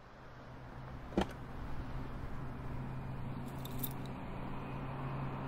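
Keys jingling briefly a little after the middle, with a single sharp click about a second in, over a steady low hum.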